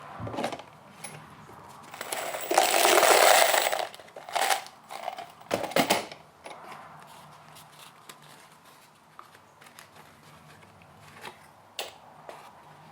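Loose 8-penny bright finish nails being poured into a plastic organizer cubby: a rattling metallic clatter about two and a half seconds in that lasts over a second. A few sharp clicks and knocks of handling follow, then light scattered taps.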